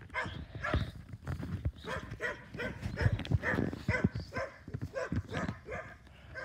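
A dog barking in a quick series of short barks, about three a second.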